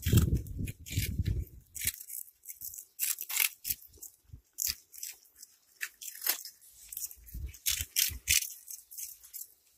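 Cats chewing and crunching food, a steady run of irregular sharp crunches. A low rumble fills the first two seconds.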